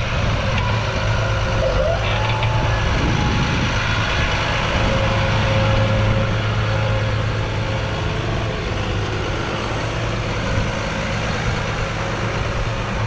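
Claas Arion 650's 6.8-litre six-cylinder diesel engine running steadily as the tractor moves across the field, a continuous low note.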